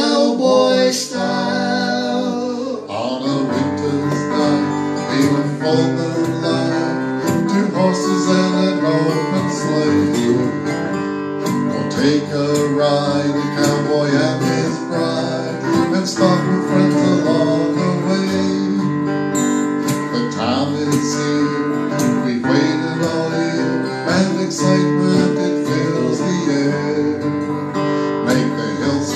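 Two acoustic guitars strumming together, playing a Christmas song.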